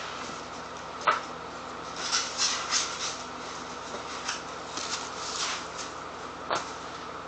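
Cardboard shipping box being opened and its packing handled: a sharp click about a second in, then runs of short scraping and rustling sounds, and another click near the end.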